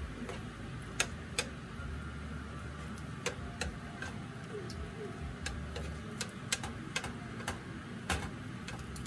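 A utensil clicking and clinking against a bowl as mashed banana is mixed in: sharp, irregular clicks about one or two a second, over a low hum that comes and goes.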